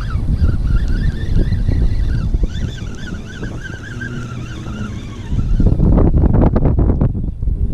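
Strong wind buffeting the microphone on a kayak, with a thin wavering whine through the first five seconds. A louder gust with crackling comes near the end.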